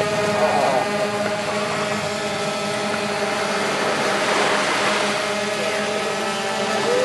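DJI Phantom 2 quadcopter hovering, its four motors and propellers giving a steady, unchanging buzzing hum made of several held tones.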